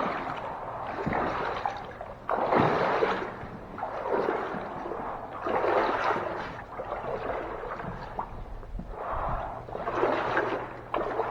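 Boots wading through standing floodwater, a splashing slosh with each stride, coming about every one to two seconds.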